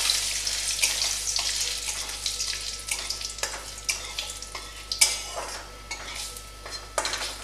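Mustard seeds and dried red chillies sizzling and crackling in hot oil in a metal wok, a tempering, while a metal spatula stirs and scrapes the pan. The sizzle dies away gradually, with scattered clicks and scrapes.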